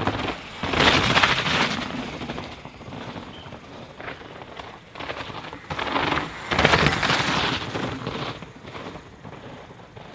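Downhill mountain bikes passing close by on a dirt track, twice: each a rush of knobby tyres on soil with fast clattering of chain and suspension, the first about a second in and the second about seven seconds in.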